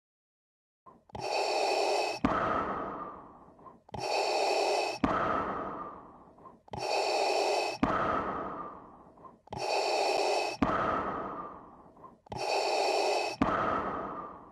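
Darth Vader's mechanical respirator breathing: five slow, evenly spaced breaths in and out, each a hissing, ringing rasp about three seconds apart, starting about a second in.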